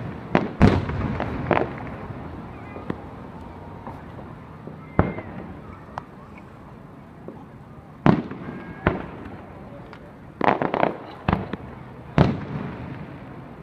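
Aerial fireworks bursting: sharp bangs at irregular intervals, several in quick succession about ten seconds in, with a low rumble in between.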